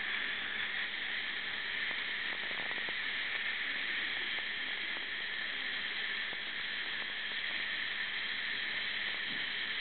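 Steady high hiss of a Waterlase MD erbium laser handpiece working on gum tissue, its air-water spray running continuously while it cuts, with a faint steady hum underneath.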